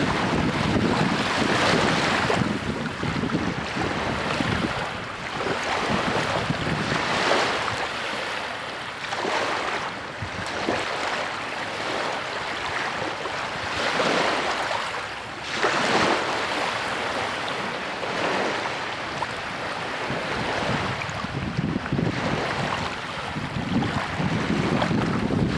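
Small lake waves lapping and washing over a rocky shore, each wash swelling and fading every few seconds.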